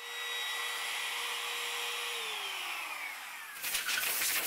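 Compact trim router running at a steady high pitch, then switched off about two seconds in, its pitch falling as the motor spins down. Near the end comes a louder, rough brushing noise.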